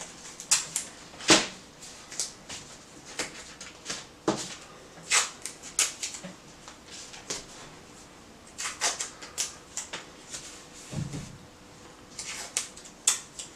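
Blue painter's tape and sheets of sandpaper being handled: an irregular string of short crackles and rips, the loudest about a second in, with a dull knock later on.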